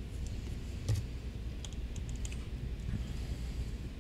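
Faint, scattered light clicks and taps of small craft pieces and a glue tube being handled against a cutting mat, about one a second, over a low steady hum.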